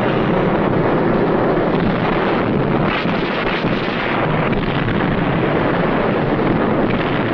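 Steady, dense rumbling noise with no separate blasts standing out, on a narrow-band old film soundtrack.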